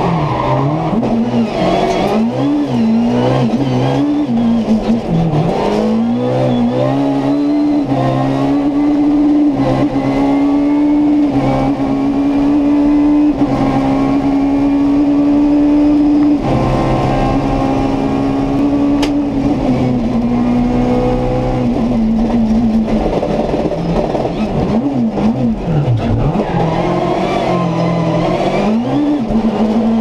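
Peugeot 306 Maxi kit car's 2.0-litre four-cylinder engine heard from inside the cabin, revving hard and climbing through the upshifts. About sixteen seconds in the driver lifts off and the revs drop, then there are quick rev blips on the downshifts before it accelerates again near the end.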